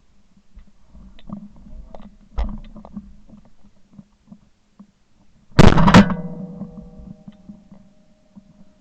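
Shotgun fired at a flushing pheasant: two very loud reports about half a second apart, about five and a half seconds in, after a few seconds of low rumbling handling noise and knocks from the gun being carried and shouldered. A faint ringing tone hangs on after the shots.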